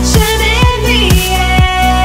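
Background music with a steady beat of about two a second and a melody over it.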